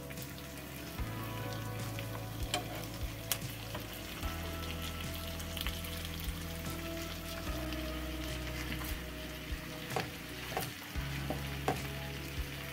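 Chicken drumsticks sizzling in butter and oil over onions in a nonstick frying pan, with sharp clicks of metal tongs against the pan as the pieces are laid in, most of them near the end.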